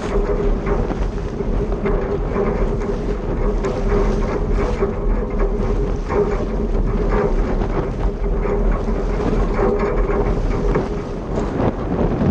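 Wind buffeting the microphone and water splashing against the hull of a sailboat under way, with a steady hum underneath.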